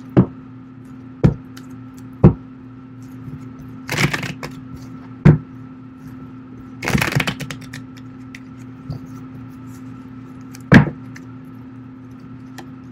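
A deck of tarot cards being shuffled by hand: several sharp snaps or taps of the cards, and two short riffling bursts about four and seven seconds in, over a steady low background hum.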